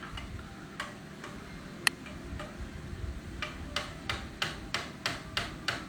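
Light sharp clicks or taps, a few scattered at first, then a steady run of about three a second through the second half.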